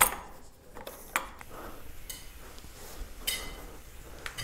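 Metal clicks and knocks of a doorway pull-up bar's steel brackets against a wooden doorframe as the bar is seated and loaded. A sharp click comes at the start and another about a second in, with a few lighter ones after.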